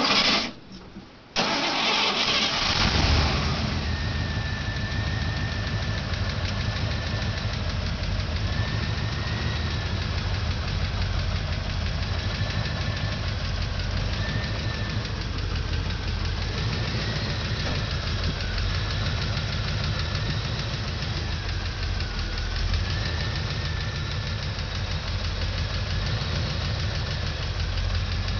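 Chevrolet 350 small-block V8 in a pickup truck starting about a second in, louder for a moment as it catches, then settling into a steady idle.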